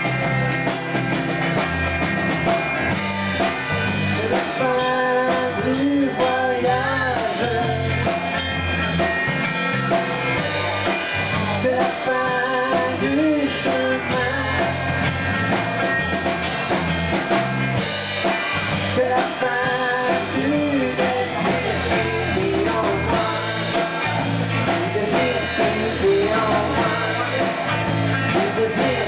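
Live rock band playing with electric guitar, bass guitar and drum kit, with a singer's voice coming and going over the music.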